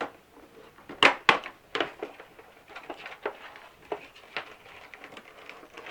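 Packaging of a small toy sewing machine being opened and handled: a string of irregular sharp clicks and rustles, the loudest cluster about a second in.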